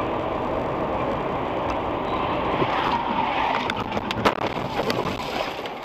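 Steady road and engine noise of a moving car, picked up by a dashcam inside the cabin. A few sharp knocks come near the end, the loudest about four seconds in.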